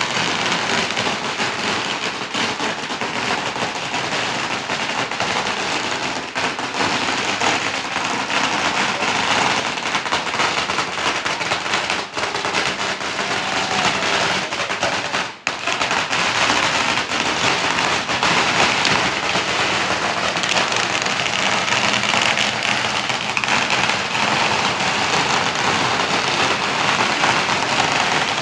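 Strings of firecrackers crackling without a break, a dense rattle of rapid pops, cutting out for a moment about halfway through.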